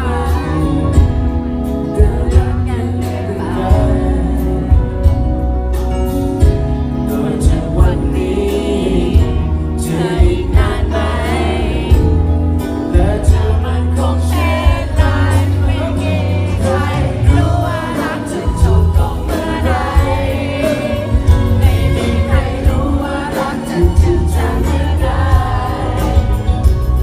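Intro of a Thai pop song: music with a steady beat and heavy bass, before the lead vocals come in.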